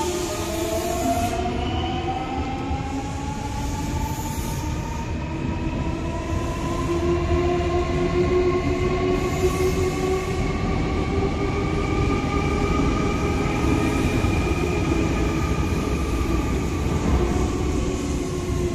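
Nankai 8300 series electric train pulling out and accelerating. Its traction inverter whines in several tones that rise slowly in pitch, over steady wheel-and-rail rumble.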